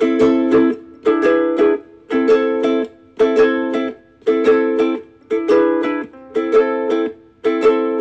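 Ukulele strummed in a steady repeating chord pattern, a short group of quick strokes about once a second.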